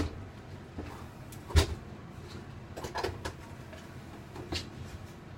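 Several separate knocks and clunks of parts and panels being handled during the teardown of a travel trailer's interior: a loud knock about one and a half seconds in, a couple of lighter ones around three seconds, and another near the end.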